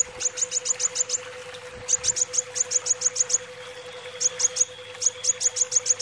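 Kolibri wulung sunbird singing in rapid runs of short, high, down-slurred chirps, about eight a second, in four bursts with short pauses between. A steady hum runs underneath.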